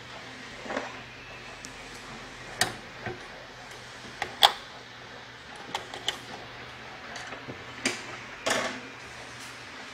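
Scattered sharp clicks and small clatters of a metal tool and fingers working at a motherboard's CMOS coin-battery holder, taking the battery out to reset the board. The loudest click comes about four and a half seconds in, over a faint steady hum.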